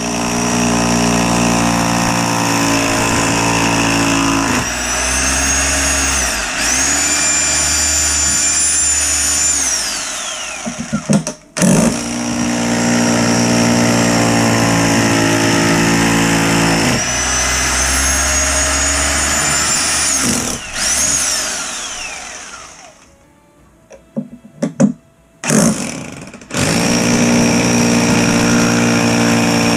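Power drill with a masonry bit boring pilot holes through a plastic toilet flange into a concrete floor for concrete screws. The motor runs in long steady spells, stops briefly just before the midpoint, winds down about two-thirds through with a few short trigger blips, then runs steadily again near the end.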